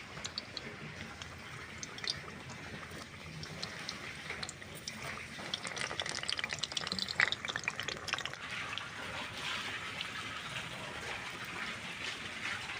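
Potatoes frying in hot oil in a kadai: a steady sizzle with scattered crackles, growing louder about halfway through.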